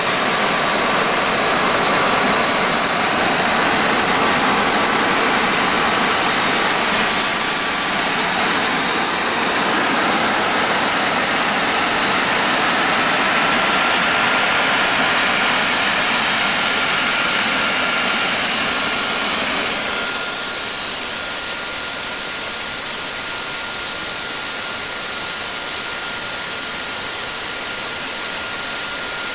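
Home-made kerosene-fuelled gas turbine (centrifugal compressor, axial-flow turbine) running at speed: a loud, steady rushing jet noise with a thin high turbine whine. The whine steps up in pitch about ten seconds in as the engine speeds up.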